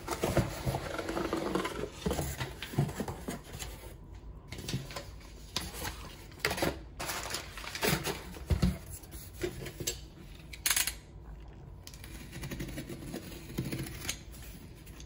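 A cardboard shipping box is handled and shifted on a tabletop: scattered knocks, scrapes and rustles, with one sharper scrape about ten seconds in. Near the end a snap-off utility knife slices through the box's packing tape.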